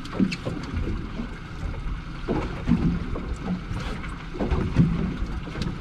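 Wind buffeting the microphone on a fishing boat at sea, over a steady low rumble, with irregular low thumps and knocks.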